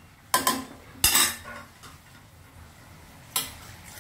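A metal spoon clanking and scraping against a stainless-steel pressure cooker pot as chicken masala is stirred. There are several sharp clinks in the first second and a half and one more near the end.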